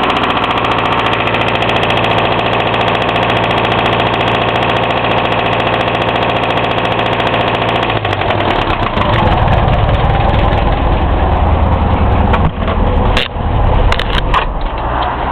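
Hillman Imp engine running with a really bad knocking noise, freshly reassembled and on one of its first starts. The owner has checked the bearings and tappet clearances and found them fine, so the cause of the knock is unknown. About eight seconds in the sound turns rougher and less even, and a few sharp clicks come near the end.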